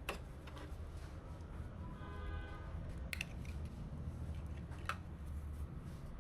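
Hands working on PC parts: a few light clicks and taps, with a brief squeaky scrape about two seconds in, over a low steady hum.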